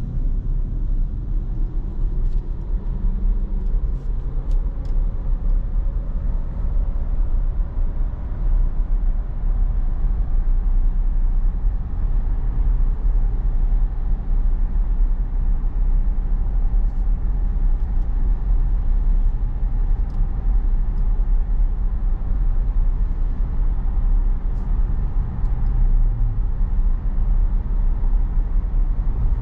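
Steady road rumble of a Tesla electric car cruising on a highway, heard from inside the car. It is mostly tyre and road noise with some wind, and there is no engine sound.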